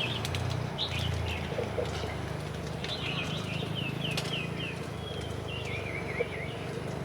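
A bird chirps about a second in, then sings a quick run of short, falling chirps from about three to six seconds in, over a low steady hum.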